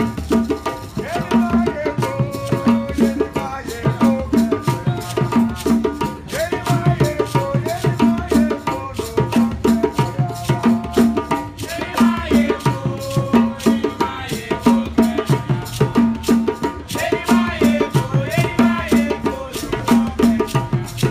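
Traditional Ghanaian hand-drum ensemble playing a fast, steady rhythm, with voices singing over the drums.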